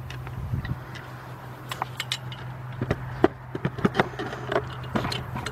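Handling noise from a camera on its tripod as it is moved and re-aimed: scattered light clicks and knocks over a steady low hum.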